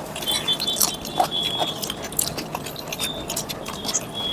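Close-miked eating sounds of chicken curry and rice eaten by hand: wet chewing, lip smacks and small clicks of fingers and food, several to the second. A thin high tone comes and goes in the background.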